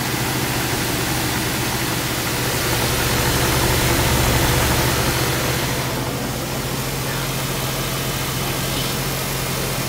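1997 Suzuki Sidekick's four-cylinder engine idling steadily, with a slight swell in level a few seconds in, while the cooling system is checked for leaks around a newly fitted radiator.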